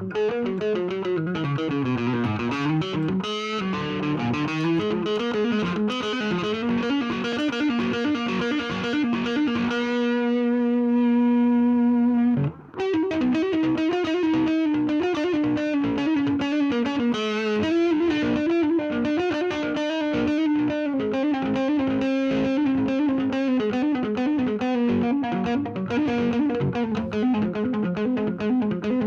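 Thinline electric guitar with P90 pickups played through a distorted 'JCM'-style amp-sound pedal: a lead line with a falling run near the start, a long sustained note around ten seconds in that breaks off briefly, then more single-note playing.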